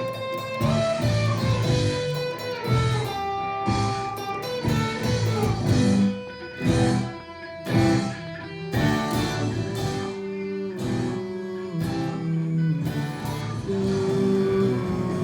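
Rock music: guitar playing a melodic line over a low bass part, with drum hits.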